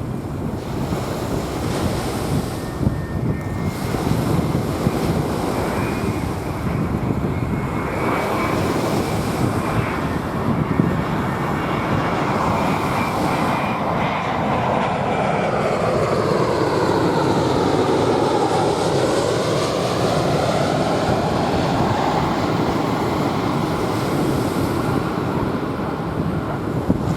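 A jet airliner passing overhead: its engine noise builds, swells to its loudest past the middle with a sweeping tone that dips and rises, then eases off. Waves wash on the sandy shore and wind buffets the microphone throughout.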